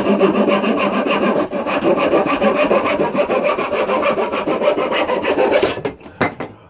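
Handsaw cutting through a wooden board in steady back-and-forth strokes, stopping a little under six seconds in, followed by a couple of short knocks.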